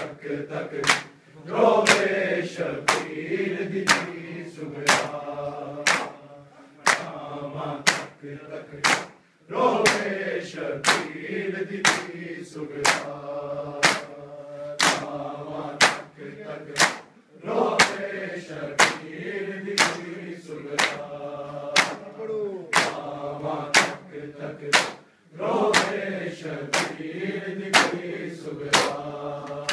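Men chanting a Muharram noha lament together, with their open-handed chest slaps of matam landing in unison in a steady beat, about one and a half slaps a second. The sharp slaps are the loudest sound.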